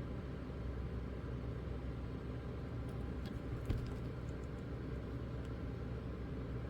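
Steady low background hum, with a few small clicks about halfway through from LEGO minifigure pieces being handled and snapped together.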